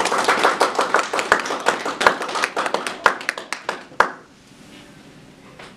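A small audience clapping, which stops about four seconds in.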